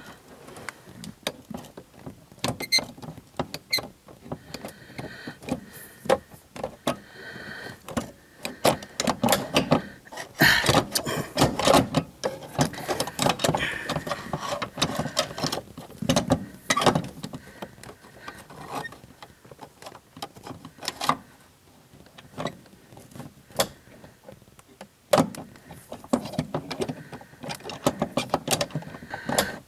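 Irregular clicks, clanks and scraping of hand tools and metal parts being worked at a car's shifter linkage, with a busier, louder stretch of clattering in the middle.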